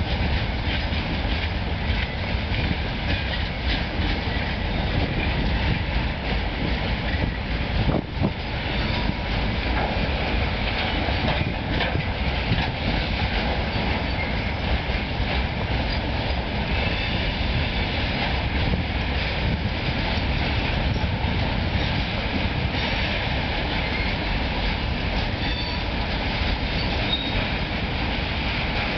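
Freight train of timber and log wagons rolling steadily past: a continuous rumble of steel wheels on the rails, with a fast clickety-clack of wheels crossing rail joints.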